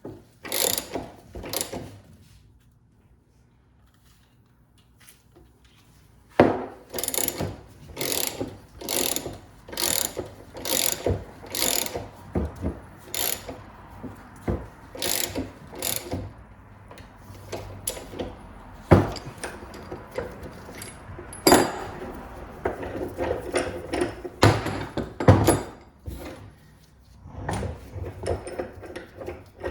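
Hand tools working metal parts of a double cardan driveshaft joint while the centering yoke is being removed. After a few quiet seconds, sharp metallic clicks come at about two a second, then turn slower and more irregular, with a few louder metal knocks.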